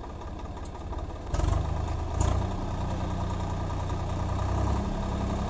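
Swaraj 855 FE tractor's three-cylinder diesel engine running steadily while driving a PTO-powered mulcher through paddy straw. About a second in the drone turns suddenly louder and deeper, with a sharp knock, and a second knock follows a moment later.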